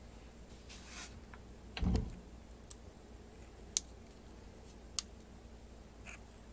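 LEGO Technic plastic beams, pins and connectors being handled and pressed together: a dull thump about two seconds in, then two sharp clicks about a second apart, with a few softer ticks.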